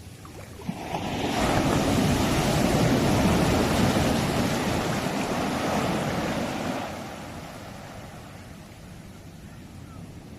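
Sea waves: a wave surges in about a second in, its rush of water loud for several seconds before fading back to a steady low wash of surf.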